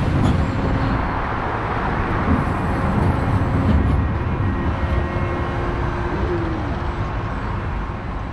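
Steady low rumble and outdoor noise around the Super Loop ride car stopped in its station. A faint tone appears midway and bends down, and the sound fades toward the end.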